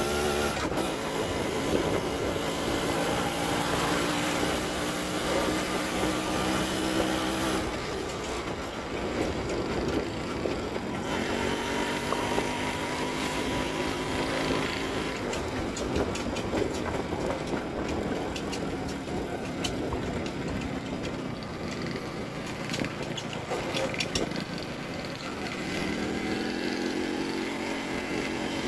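Yamaha RX 100's two-stroke single-cylinder engine running as the motorcycle is ridden. Its pitch changes about seven seconds in and climbs again near the end.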